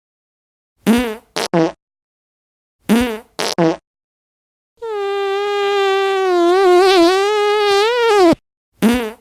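Fart sound effects from a phone app. A short three-part fart sample plays twice, about two seconds apart. Then a long, drawn-out fart of about three and a half seconds holds one pitch with a slight wobble, and near the end the short sample starts again. Between the sounds there is dead silence.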